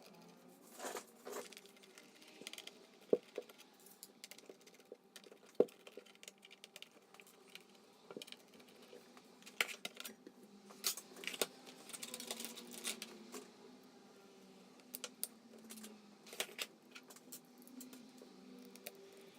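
Small screws and a screwdriver clicking and tapping against a laptop's metal case during disassembly. The clicks are scattered and irregular, with two sharper knocks about three and five and a half seconds in.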